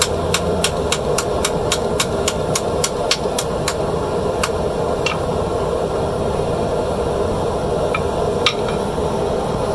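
Blacksmith's hammer striking iron on an anvil in a fast, even run of about four to five blows a second while forging an iron ring. About four seconds in the run stops, and a few single blows follow. A steady hum runs underneath.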